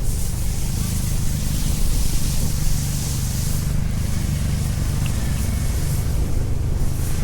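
Wind buffeting the microphone in a snowstorm, a steady low rumble under a high hiss of street noise that dips briefly twice.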